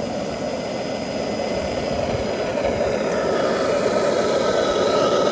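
Twin propellers of an RC scale OV-10 Bronco model running on the ground, mixed with the simulated turboprop sound from its onboard sound module; the steady propeller noise grows a little louder, with a faint turbine-like whine rising toward the end.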